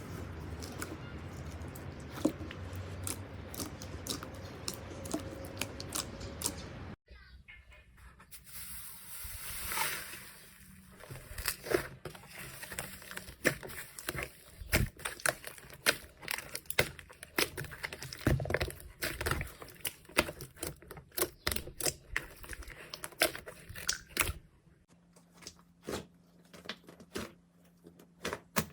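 Hands squeezing and pressing slime: a dense, continuous crackling for the first few seconds, then, after a cut, a run of sharp, separate crackles and pops that grow sparser and quieter near the end.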